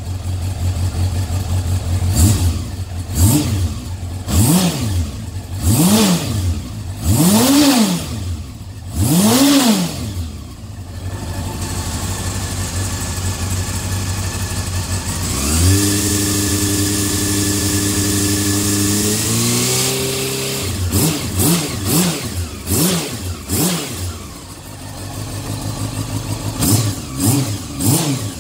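Honda CB400 Super Four VTEC (NC39) inline-four engine running through a Yoshimura titanium muffler. It is blipped five times from idle, then held at a steady higher rpm for about four seconds, rising a step near the end of that hold, then given another run of quick revs.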